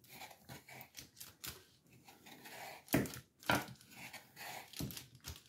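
Kitchen knife cutting through a rolled sheet of dog biscuit dough on parchment paper: a series of light, irregular taps as the blade presses down, the two loudest about three seconds in.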